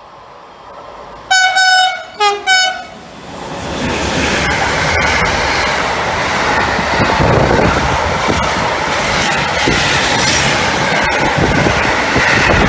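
Electric train sounding its horn in three quick blasts, then passing at speed close by with a loud steady rush and rail clatter.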